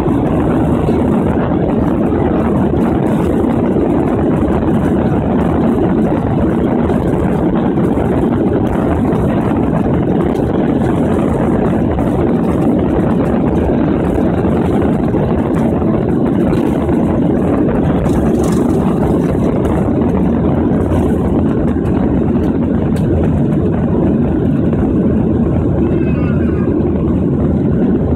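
Jet airliner at takeoff thrust, heard from inside the cabin over the wing: a loud, steady, deep rushing noise of the engines and airflow through the takeoff roll and liftoff.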